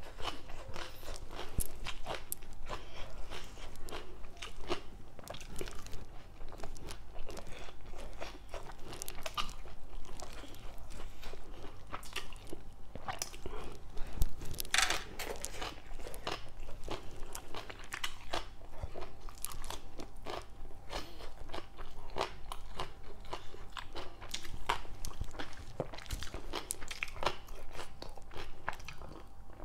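Close-up chewing and crunching of papaya salad and raw vegetables: a steady run of crisp, wet bites and chews, the loudest crunch about halfway through.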